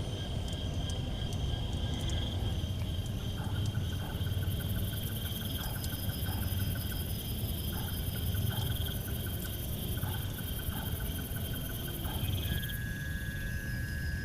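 Night insects chirring in several steady high trills, with a pulsed call repeating in short runs, over a steady low rush. Near the end one trill stops and a new, lower steady trill starts.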